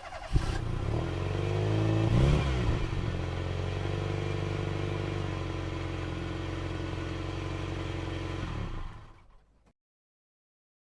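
Train engine sound effect: a low, steady engine drone with a clattering, rattling edge. It swells with a brief rise and fall in pitch about two seconds in, runs evenly, and fades out about nine seconds in.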